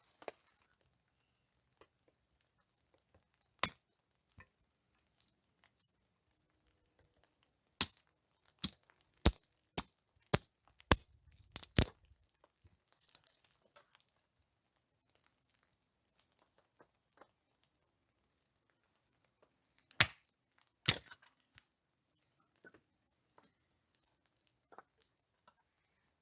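Sharp knocks or strikes: a single one, then a quick run of about eight, roughly two a second, then two more close together near the end, with faint rustling and crinkling between.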